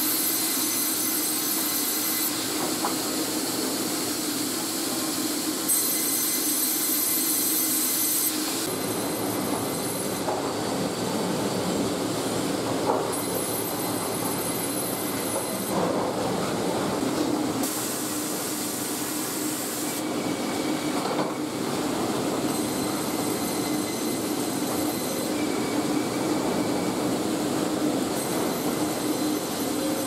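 Sawmill log-handling machinery running: chain conveyors and rollers moving debarked logs, a steady mechanical din with a hum and a high whine that comes and goes. Occasional knocks sound as logs shift on the steel.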